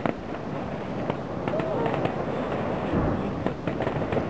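Distant aerial fireworks heard from several kilometres away: scattered sharp pops and bangs, about a dozen in four seconds, over a steady background hiss.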